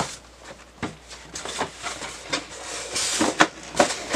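Polystyrene foam packaging insert and cardboard box being handled as a mouse is packed back into its box: rubbing and scraping with a string of light knocks and clicks, the sharpest about three and a half seconds in.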